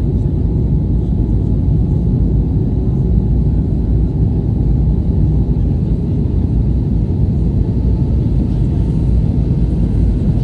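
Steady low rumble of airliner cabin noise inside an Airbus A320 on its descent: engine and airflow noise heard from a window seat.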